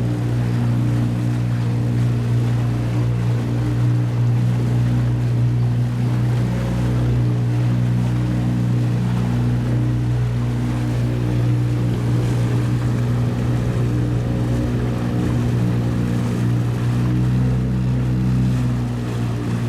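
Boat motor running at a steady speed, with wind and water noise.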